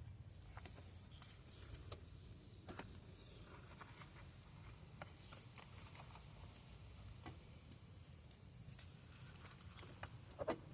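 Faint scattered clicks and light taps over a low steady hum, with a slightly stronger cluster of clicks near the end.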